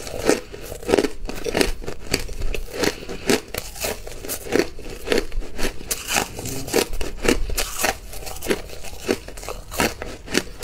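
Crushed hard ice being chewed: an irregular run of crisp crunches and cracks, several a second.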